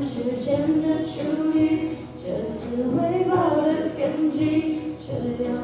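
Girls singing a Mandarin pop duet into handheld microphones, amplified through stage speakers, in sustained sung phrases.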